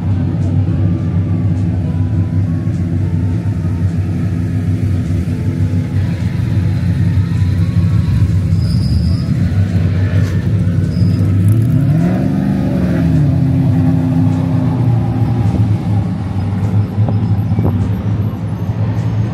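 A car engine idling with a steady low rumble, revved once briefly about twelve seconds in, its pitch rising and then falling back to idle.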